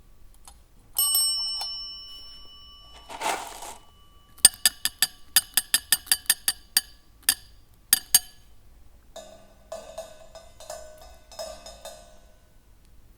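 Hand-made sound effects from kitchen objects: one bright ringing strike that rings on for a moment, a short rustling shake, then a quick run of sharp clinks and taps, ending in a busier rattle of lower clinks.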